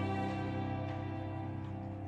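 String ensemble of violins and cellos sustaining a chord that slowly fades.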